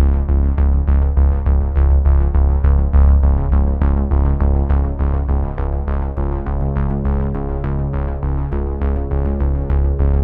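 Background electronic music: synthesizer notes repeating in a steady pulse of about four a second over a held deep bass.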